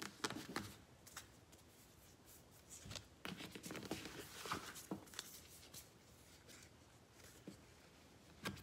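Tarot cards handled on a cloth-covered table: quiet taps and slides as cards are moved and laid down, with a busier stretch of rustling a few seconds in.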